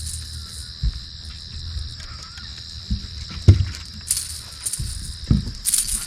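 Steady high-pitched chorus of insects chirring, with a few dull low thumps, the loudest about three and a half seconds in.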